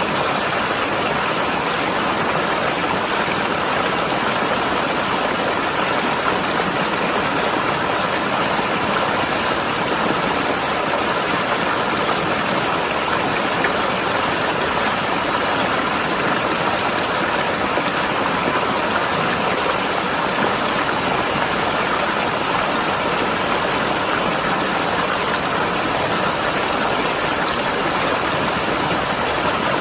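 Mountain river rushing and gurgling over rocks, a steady even flow of water with no change.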